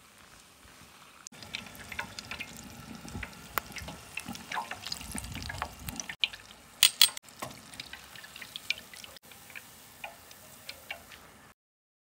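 Batter-coated corn dog frying in shallow oil in a skillet: sizzling with many sharp crackling pops, starting about a second in, the loudest pops about seven seconds in.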